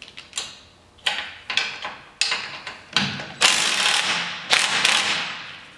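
Cordless drill/driver with a long socket extension backing out a bolt on an ATV's front frame: a string of sharp clicks, then two longer spells of running about three and a half and four and a half seconds in.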